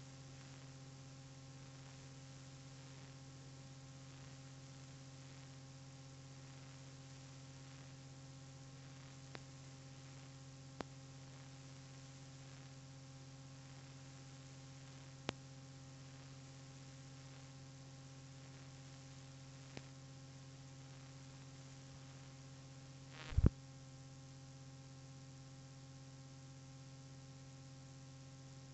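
Faint, steady electrical mains hum with no music or voice, broken by a few scattered clicks and one louder crackling pop about three-quarters of the way through.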